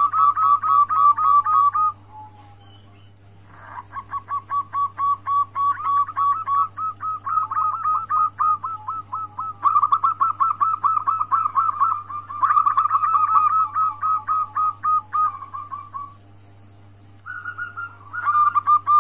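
Female zebra dove (perkutut) calling to a male: rapid runs of short cooing notes at about five a second, broken by two short pauses. A faint steady high ticking and a low hum run underneath.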